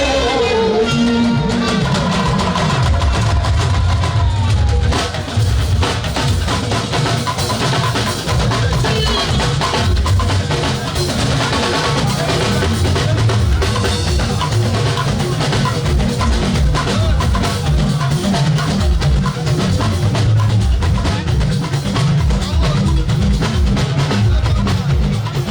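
Loud, dense music driven by drums and a heavy bass drum beat.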